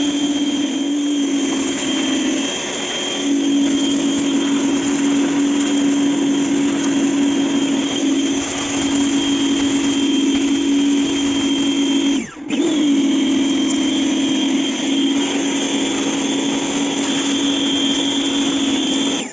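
Small electric pressure washer running steadily, its pump motor humming under the hiss of the water jet spraying the steel chassis of a seed drill. The pump cuts out for a moment about twelve seconds in, as the trigger is released, and starts again.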